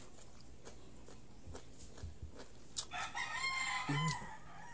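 A rooster crowing once, a long call of about a second and a half starting near three seconds in. Before it come faint scattered clicks of chewing.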